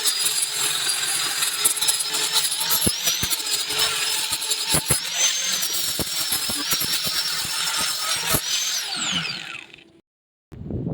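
Electric hand power tool running with a steady high whine that wavers slightly under load, with scattered clicks and knocks. Near the end it is switched off and its whine falls away as it spins down, followed by a brief silence.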